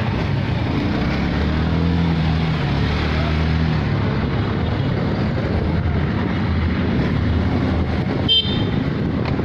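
A motor vehicle's engine running steadily amid road traffic noise, with a brief high-pitched beep near the end.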